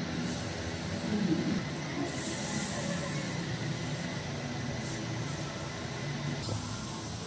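Marinated chicken pieces sizzling on a hot iron grill grate over charcoal, a steady hiss that is strongest through the middle, over a low steady hum.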